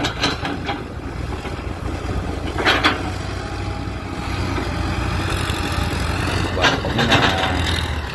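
Heavy machinery engine running steadily with a low drone, with a few short, louder noisy sounds over it, about three seconds in and again near seven seconds.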